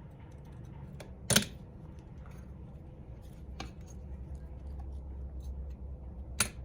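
A few sharp little metal clicks as a small tool works a tiny aluminium clip off a wing-mirror hinge bracket. The loudest click comes about a second and a half in, and another comes near the end.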